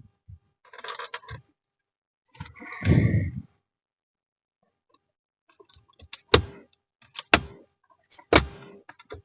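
Clips of a JAC JS6 centre console panel snapping loose as the panel is pried up: some handling noise, a longer rough noise about three seconds in, then three sharp clicks about a second apart near the end.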